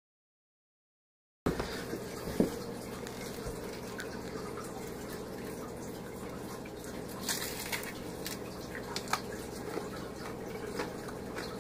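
Starts with about a second and a half of dead silence, then faint crackling, rustling and light clicks as crunchy fried frog legs are handled and pulled apart by hand on a paper towel, over a steady low background hiss.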